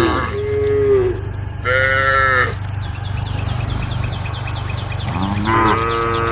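Cows mooing: a short moo ending just inside the start, two more within the first two and a half seconds, then a longer moo that rises in pitch starting about five seconds in. A fast, high ticking runs between the moos.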